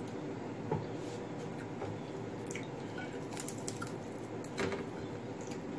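Wet chewing and mouth sounds of a person eating rice and fried fish by hand, with scattered small clicks and a louder smack about a second in and again near the end. In the second half a run of crisp crackles as the fried fish is pulled apart with the fingers, over a steady background hum.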